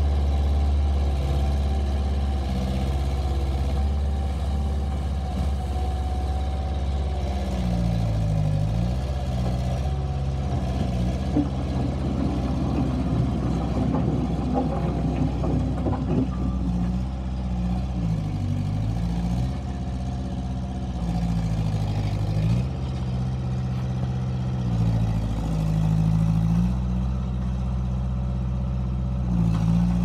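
Bobcat S150 skid steer loader's diesel engine running under work, its pitch dipping briefly and recovering several times as the machine drives and turns and the load comes on. A stretch of rattling runs through the middle.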